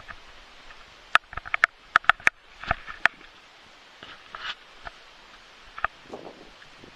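Scattered sharp little clicks and ticks close to the microphone, bunched about a second to three seconds in, with a few soft sniffs.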